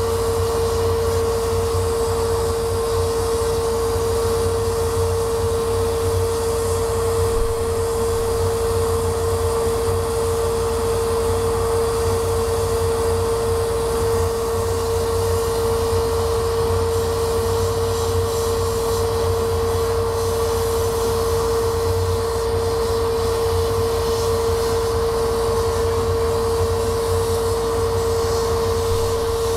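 Laser cutter running while it cuts a sheet of wood: a steady machine drone with a constant mid-pitched hum over a low rumble and an airy hiss.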